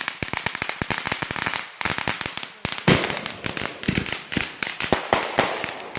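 Consumer fireworks going off: a rapid, dense run of sharp cracks and pops, several a second, with a louder bang about three seconds in.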